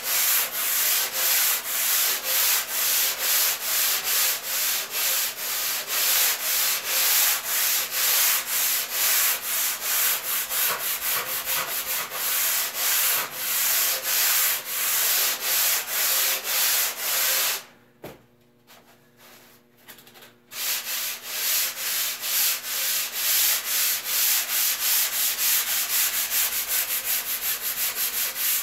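A hand sanding block rubbed back and forth over the bottom of a surfboard blank as channels are shaped in, a rasping hiss in quick, even strokes about two a second. It stops for about two and a half seconds about two-thirds of the way in, then resumes.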